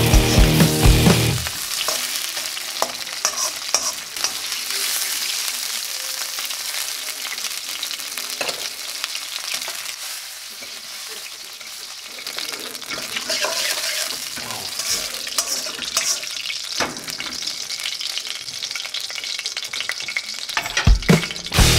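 Shrimp sizzling in hot chili oil in a wok, with a slotted spatula scraping and tapping the pan as they are stirred. The sizzle dips quieter midway and picks up again. Music with a beat plays briefly at the start and again near the end.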